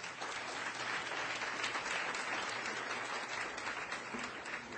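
Lecture-hall audience applauding, a dense patter of many hands clapping that thins out near the end.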